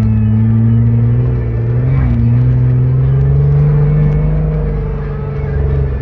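Sand rail's engine running under steady throttle, heard from the cockpit while driving across sand dunes. Its pitch rises slowly over the first four seconds, then eases down, and the sound dips briefly near the end.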